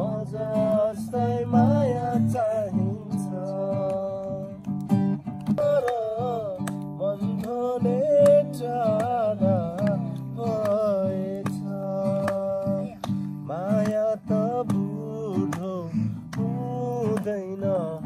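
An acoustic guitar is strummed while a voice sings a melody along with it.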